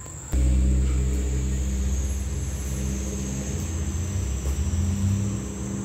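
A low engine rumble with a steady hum of several tones, starting abruptly a moment in and running on steadily.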